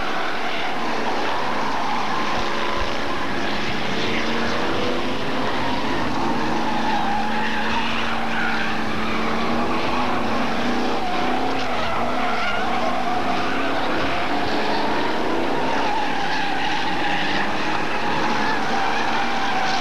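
Several Hot Stox oval racing cars running round the track, a continuous engine noise whose notes rise and fall as the cars pass and change speed.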